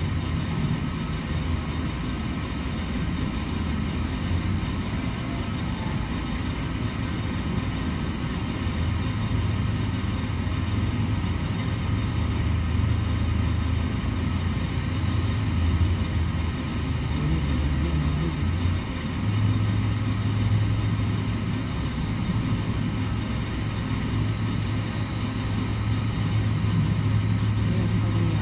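A steady low machine hum that fades back and swells again, stepping slightly higher in pitch about two thirds of the way through.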